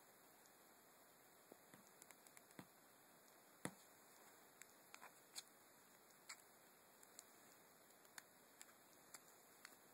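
Faint scattered clicks of fingertips tapping and handling a Samsung Galaxy Note 2 smartphone's glass touchscreen and case, about a dozen taps with the sharpest about three and a half seconds in, over near silence.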